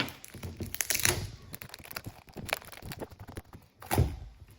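Packaging around a shipped potted plant being unwrapped by hand: irregular rustling with small clicks and knocks, and a louder thump about four seconds in.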